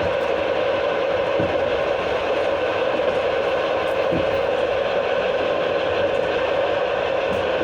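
Passenger car's wheels and brake shoes heard from under the floor, through the open toilet chute, as the train brakes down a long grade: a steady grinding rumble of wheels on the rails, with a couple of faint knocks.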